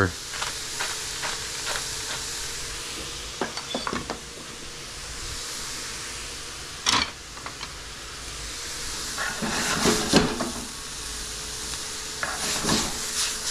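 Chopped onion, carrot and garlic sizzling steadily in olive oil in a skillet. A pepper grinder clicks over the pan in the first few seconds, then a wooden spoon stirs and scrapes the vegetables around the pan, with one sharp knock about seven seconds in.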